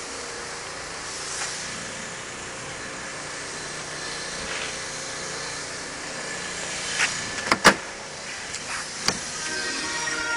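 A car door being opened: a few sharp clicks and knocks of the handle and latch about seven seconds in, over a steady hiss of background noise. Music starts near the end.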